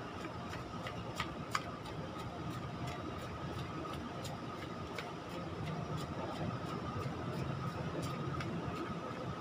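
Light, irregular taps and clicks, a few a second, typical of shoes on concrete while stepping and jogging in place. Behind them are a steady low rumble and a faint steady high tone.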